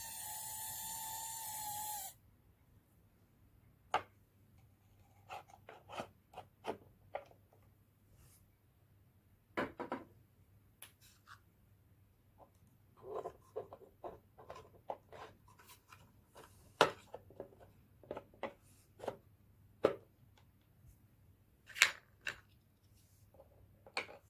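Small geared electric motor of a 3D-printed RC tank model whirring steadily as it traverses the turret, stopping about two seconds in. After it come scattered light clicks and taps of the plastic model being handled.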